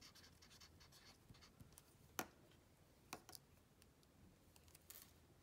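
Faint felt-tip marker strokes on chart paper, then a few short sharp clicks, the loudest about two seconds in.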